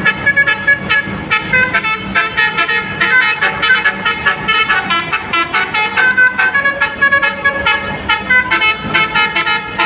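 Telolet basuri musical horn on a bus playing a quick tune: a fast run of short horn notes, several a second, jumping between pitches.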